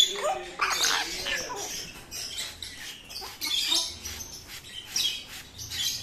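Parrots fighting: African greys with an Alexandrine, giving a string of harsh screeches and squawks in quick bursts. The loudest comes right at the start.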